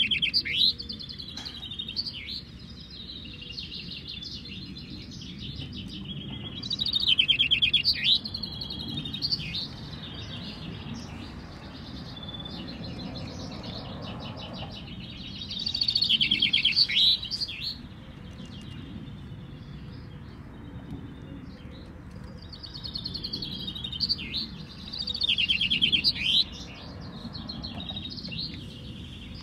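Common chaffinches (male contest finches) singing their song phrases: bright descending trills each ending in a flourish, two to three seconds long, coming every several seconds. Under them is a steady low background noise.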